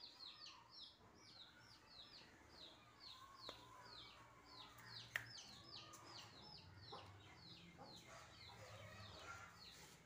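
Chicks peeping faintly: a steady run of short, falling peeps, about three a second, with a few light knocks in between.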